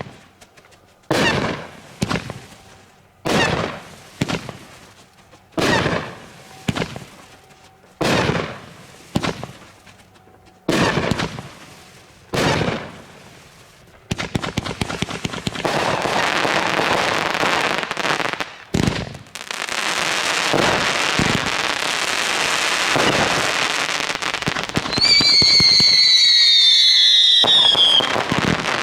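A 36-shot 500-gram consumer firework cake (Black Scorpion Rebellious Desire) firing: single shots about a second or so apart, each followed by its burst in the air, then a dense run of rapid crackling. Near the end a loud whistle falls in pitch for about three seconds.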